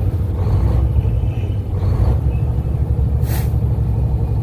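Semi truck engine and road noise heard from inside the cab while driving: a steady low rumble. About three seconds in comes a short, sharp hiss of air.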